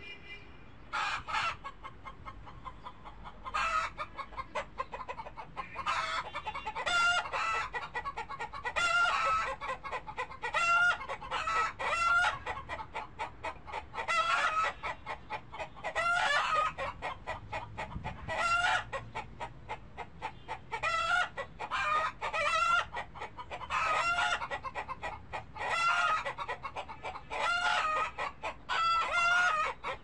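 Chickens clucking and calling over and over, about one call a second, starting about a second in.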